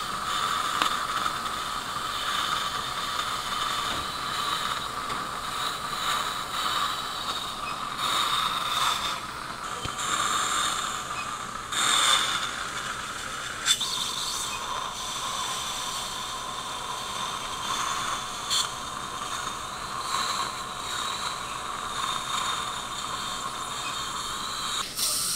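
Surgical implant handpiece drilling into the upper jawbone with a twist drill and a Lindemann drill: a steady geared whine, with the hiss of surgical suction and a few short clicks.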